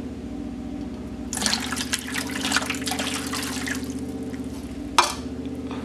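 Water splashing and trickling for about two seconds, over a steady low hum. A single sharp knock comes near the end.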